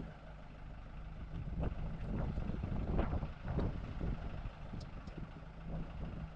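Several metal clanks and knocks, the loudest about three seconds in, as a car engine hanging on a hoist chain is lowered and nudged against the transmission. A steady low hum runs underneath.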